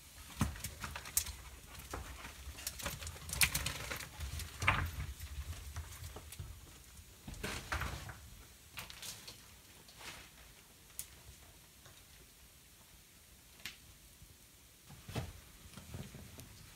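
Irregular scuffs, scrapes and small knocks of someone moving over cave rock and handling gear, in short clusters that are busiest in the first half and sparser later.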